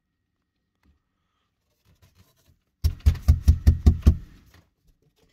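Near silence, then about three seconds in a quick run of about eight dull knocks, some six a second.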